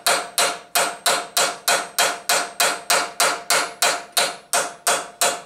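Hand hammer striking a cape chisel in a steady run of blows, about three a second, each with a short metallic ring, as the chisel cuts a keyway into a cold metal shaft and lifts a curling chip.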